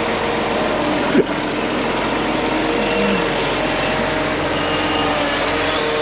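A heavy diesel engine running steadily, with one short knock about a second in.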